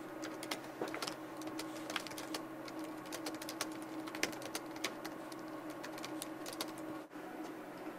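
Typing on a computer keyboard: a quick, irregular run of key clicks, with a faint steady hum underneath.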